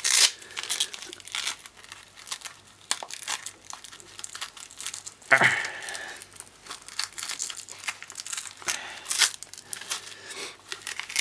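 Hook-and-loop (Velcro) fabric strap being ripped apart and pressed together while it is fitted around a small monitor, with crackly fabric and plastic handling in between. Loud rasping rips come right at the start, about halfway through, and again near the end.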